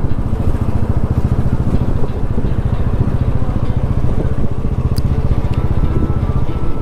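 Motorcycle engine running steadily while the bike rides along, a dense low rumble with rapid pulsing.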